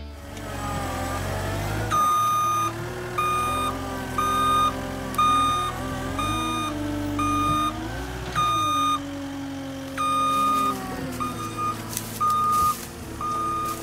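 Caterpillar 259D compact track loader's diesel engine running, its pitch rising and falling as it works, with its backup alarm beeping in short pulses, roughly one to two a second, from about two seconds in.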